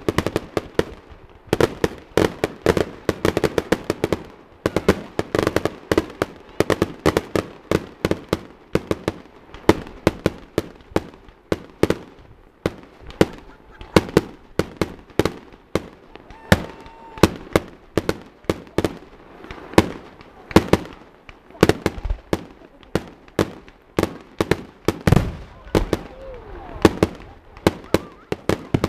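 Fireworks display: a rapid, uneven string of bangs and crackles from bursting shells, several a second without a break.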